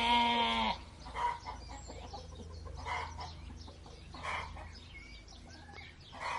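Chickens clucking: a long, steady call in the first second, then short single clucks about every second and a half.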